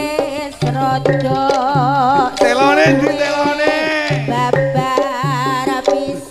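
Live Javanese jaranan music played through a sound system: hand drums and struck gamelan metallophones keep a steady, repeating rhythm under a wavering, vibrato-laden melody line.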